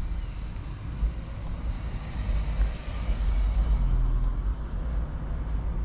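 Motor traffic passing on the road, a swell of car noise building from about two seconds in, over a constant low wind rumble on the microphone of a moving bicycle.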